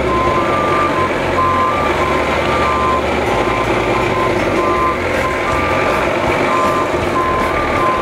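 Dump truck backup alarm beeping repeatedly, about two short beeps a second at two slightly different pitches, over the truck's engine running as it reverses.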